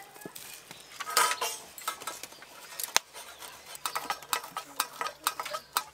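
Mango leather (aamsatta) grated on a stainless steel hand grater against a steel plate: short scraping strokes with light metal clicks, sparse at first and quicker from about four seconds in.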